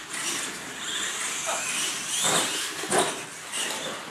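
Radio-controlled monster trucks driving on a concrete shop floor: a high motor-and-gear whine that rises and falls with the throttle, with two sharp knocks as the trucks bump over the course.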